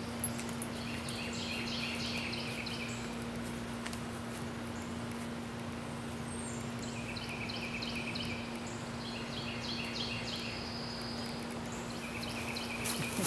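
Outdoor ambience with a bird singing short phrases of quick repeated chirps, about four times, each phrase lasting one to three seconds. A steady low hum runs underneath.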